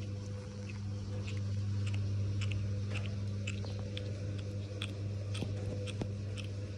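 A cat chewing and biting its food: irregular short clicks, over a steady low hum.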